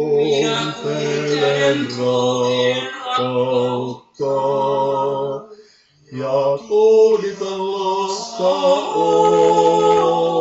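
Male voices singing a Finnish lullaby a cappella in four-part harmony: slow, held chords, with two short breaks about four and six seconds in.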